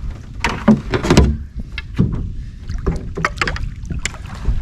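Water splashing around a small rowboat, with a handful of irregular sharp splashes and knocks.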